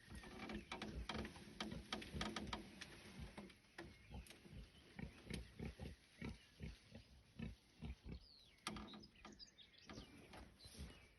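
Wild boar grunting low, mixed with many short clicks and rustles. The grunting is strongest in the first few seconds.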